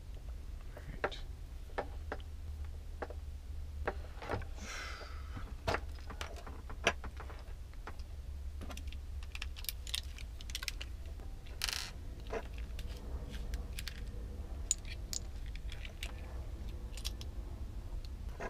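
Small irregular clicks and taps of plastic 12-volt socket splitters, wires and a multitool being handled on a stone countertop, with two short scraping rustles, about five seconds in and again near twelve seconds, over a low steady hum.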